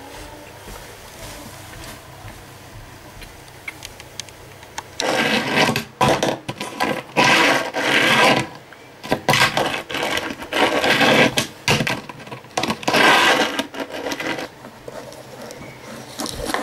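A fingerboard rolling and scraping across a griptape surface, pushed back and forth by hand in a run of bursts about a second long with sharp clacks, starting about five seconds in and dying down near the end.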